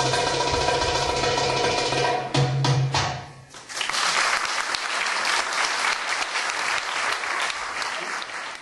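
Middle Eastern drum-solo music on goblet drum (Arabic tabla, darbuka) over a sustained backing, ending in a few hard closing strokes about two and a half seconds in. Audience applause then starts just before the midpoint and carries on.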